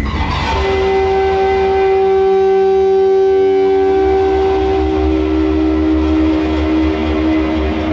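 Electronic drone from an interactive light-curtain installation, responding to a visitor's touch: a chord of held tones swells in about half a second in and sustains, with some of its tones shifting pitch four to five seconds in, over a steady low rumble.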